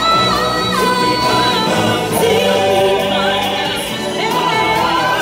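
Stage-show music with a choir singing long held notes in chords over the instrumental backing.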